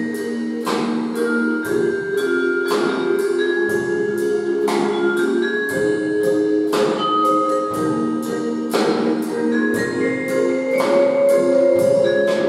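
Live percussion ensemble music: drum-kit hits on a steady beat of about one a second with lighter ticks between, over held low keyboard chords and mallet-struck notes from a xylophone-type instrument.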